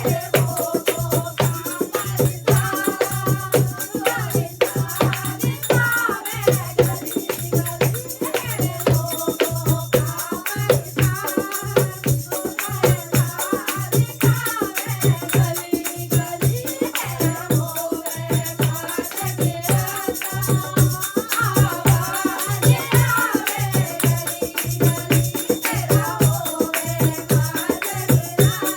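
Hindi devotional song (bhajan) with a singing voice over a steady low drum beat and jingling, rattling percussion.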